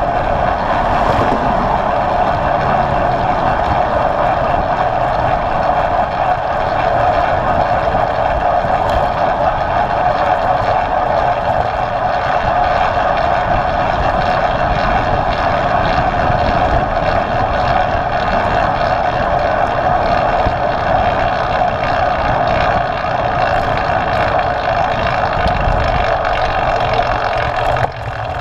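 Steady rush of wind and road noise on a handlebar-mounted GoPro on a bicycle riding at speed, easing briefly near the end as the bike slows.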